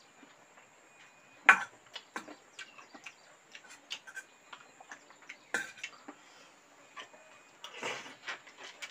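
Close-up eating sounds from two people: scattered wet mouth clicks and smacks while chewing, with a sharp louder click about a second and a half in and another about halfway through. There is a short rustling or slurping burst near the end.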